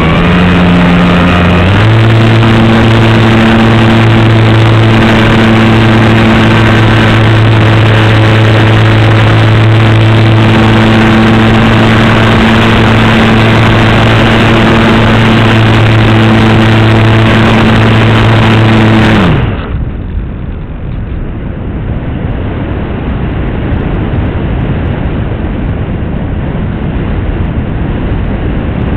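Radio-controlled model airplane's propeller motor heard from a camera on board, running at a steady pitch that steps up about two seconds in, over heavy wind noise. About two-thirds of the way through the motor is throttled off and its pitch drops away, leaving rushing wind as the plane glides with the propeller stopped.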